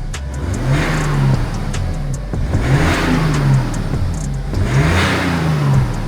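BMW 435d's 3.0-litre straight-six twin-turbo diesel blipped three times from idle, each rev rising and falling over about a second. It runs through a dual exit exhaust with the rear silencer deleted but the diesel particulate filter still fitted, so it sounds no different from standard.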